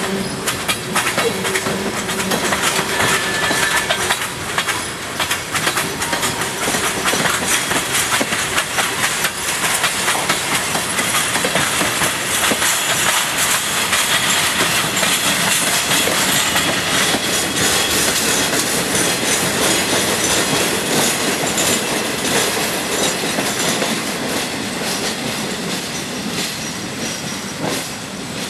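CSX local freight train rolling past, the last tank cars and a Conrail caboose going by: a steady rush of wheel noise with rapid clicking over the rail joints, easing off slightly near the end.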